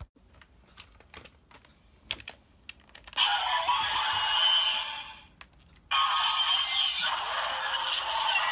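Light plastic clicks from handling the Ultraman Z Z-Riser transformation toy, then the toy's electronic sound effects from its built-in speaker. The sound effects come in two stretches, the first starting about three seconds in and the second about six seconds in.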